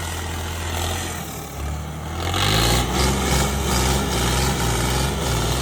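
John Deere 5210 tractor's diesel engine running. Its note shifts about a second in and grows louder from about two seconds in as it picks up revs.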